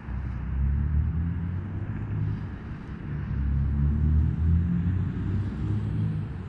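A low, uneven rumble that swells and fades.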